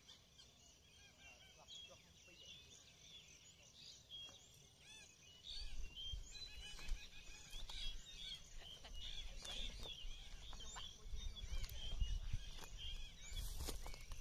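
Many birds chirping and calling at once in a dawn chorus, short high chirps overlapping throughout. About five seconds in, a low rumbling noise joins in and becomes the loudest sound.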